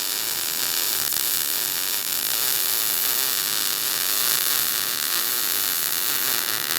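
MIG (semi-automatic) welding arc running continuously as a steady hiss, laying a vertical-down bead on thin 1.5 mm steel profile tube with 0.8 mm wire under an 80% argon / 20% CO2 shielding gas mix.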